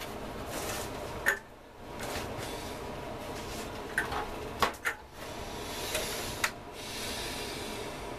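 Mustang 505 welding inverter's case being handled and turned on a workbench: a few sharp knocks and clicks with rubbing and scraping between them.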